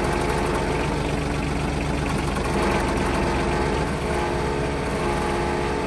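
Yanmar Ke-3 small tractor's engine idling steadily.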